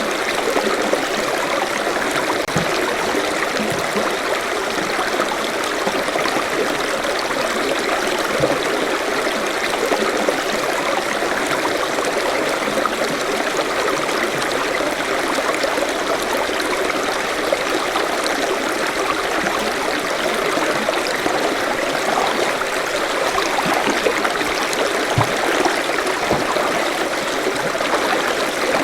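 Forest stream running: a steady, even rush of water flowing over stones.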